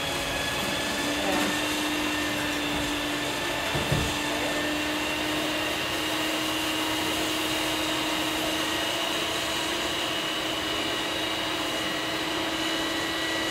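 Electric stand mixer running at a steady speed as it beats eggs into the sugar mixture for cookie dough: a constant motor hum with a faint whine. There is a brief knock about four seconds in.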